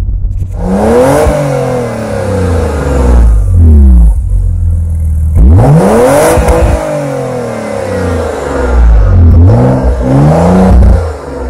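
Porsche Macan's twin-turbo V6 engine revved several times through its quad exhaust. Each rev rises and falls in pitch.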